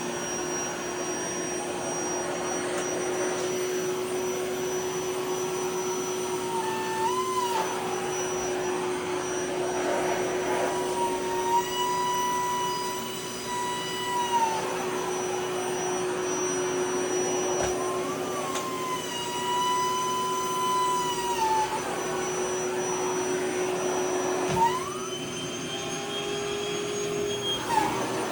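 Vacuum cleaner running steadily. A whistling tone comes and goes four times, rising and falling as fabric is drawn into the nozzle and partly blocks the airflow, with a few soft knocks.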